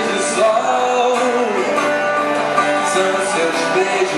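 Live pop-rock music: a guitar playing along with a male voice singing a melody.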